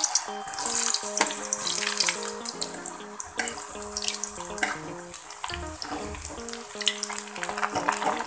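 Cubed potatoes deep-frying in hot oil in a kadai: a dense crackling sizzle with many small pops. A spatula stirs them about halfway through.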